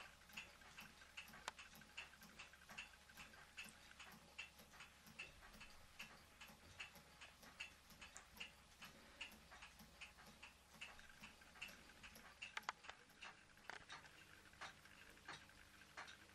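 Ross yoke low-temperature Stirling engine running on the heat of a mug of hot water, its linkage and pistons making soft, even ticks at about two to three a second, with a few slightly louder clicks after the middle.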